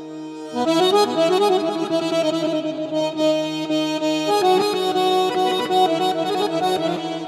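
Piano accordion playing a melody in the Segah mode over a held low note, with a new phrase coming in about half a second in.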